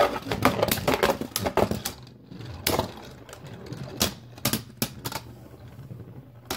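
Two Beyblade Burst spinning tops clattering in a plastic stadium. A fast run of clacks comes in the first two seconds as the freshly launched tops collide and scrape, then sharp single clacks come every half second or so as they strike each other and the stadium. A low steady hum runs underneath.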